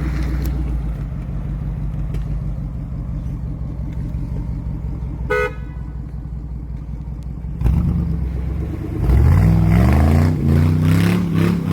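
Jeep Grand Cherokee WJ's 4.7-litre V8 running at low revs in clay, with a short horn toot about five seconds in; from about nine seconds the engine revs hard, its pitch rising and falling repeatedly.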